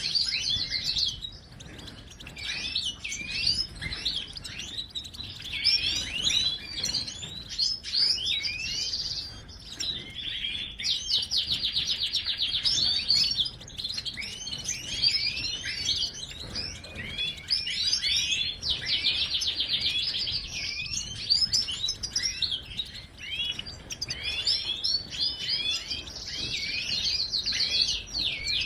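European goldfinch singing: a continuous run of high, quick twittering notes, broken several times by rapid buzzy trills.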